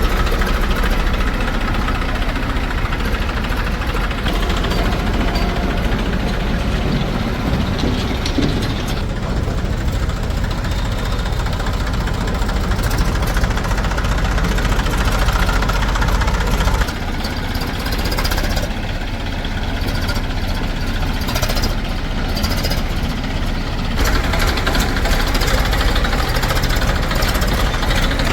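Heavy diesel engine running steadily at a loud, even level. It drops a little past the middle and picks up again a few seconds later.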